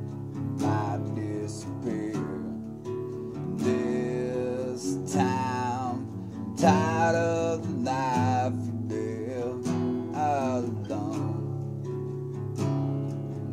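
Acoustic guitar strummed and picked as a song accompaniment, chords ringing steadily, with a voice singing long, wavering phrases through the middle.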